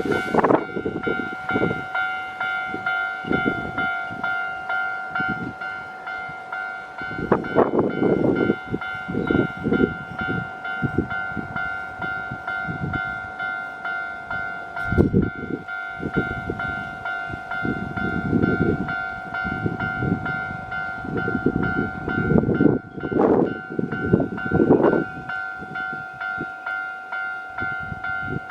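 Japanese level-crossing electronic alarm bell ringing steadily as a Keio 9000 series train passes through the crossing, its wheels rumbling and knocking over the rail joints in irregular clusters.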